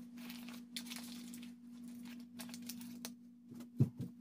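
Faint rustling of parchment paper and soft handling as raw fish fillets are turned over by hand on a lined baking tray, with a couple of soft knocks near the end. A steady low hum runs underneath.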